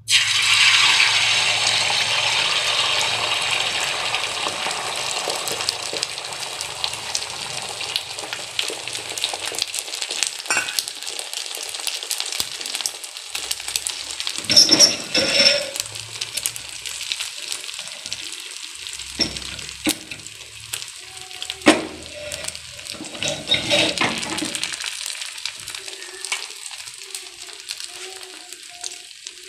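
Beaten egg with chopped herbs poured into a hot pan, sizzling loudly at once, the frying hiss slowly dying down as the omelette sets. A few brief knocks partway through.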